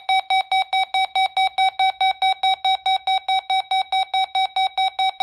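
Electronic alarm of a weather alert radio beeping rapidly and evenly, about six or seven short, shrill beeps a second, signalling that a weather alert has been received.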